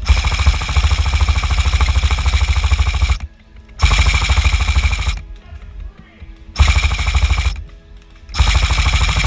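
Krytac Kriss Vector airsoft electric gun firing on full auto: one long burst of about three seconds, then three shorter bursts of about a second each, the gearbox cycling in a fast, even rattle.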